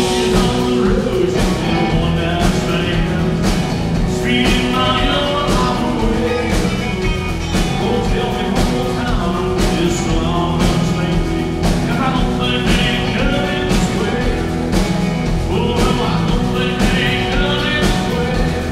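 Live country rock band playing: electric guitars, bass and drum kit on a steady beat, with a man singing lead into a microphone.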